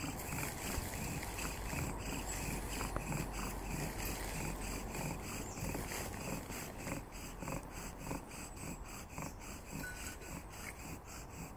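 Bow drill in use: the wooden spindle grinds in the hearth board with quick, even back-and-forth strokes of the bow, about three a second. The drilling has reached the stage where the hearth board is smoking.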